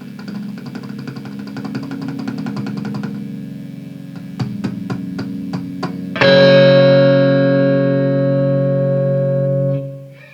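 Electric guitar played through an amplifier with effects and some distortion: a chord picked rapidly for about three seconds, a few separate strums, then a loud chord struck about six seconds in and left ringing for several seconds before it is cut off.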